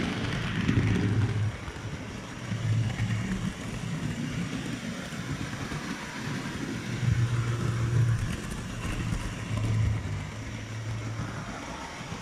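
Model train running round a model railway layout, heard from a camera riding on the train: a continuous rumble of wheels on the track, with a low motor hum that swells and fades several times.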